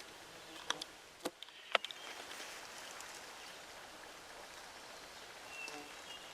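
Three short, sharp clicks or snaps in the first two seconds, the last the loudest, over a faint steady woodland background.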